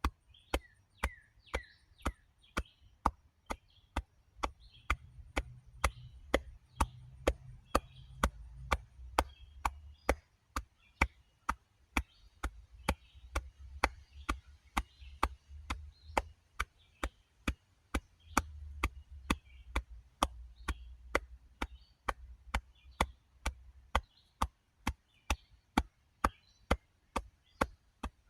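Sharp, evenly spaced clicks at about two a second, keeping a steady beat throughout, with faint high chirps in the background.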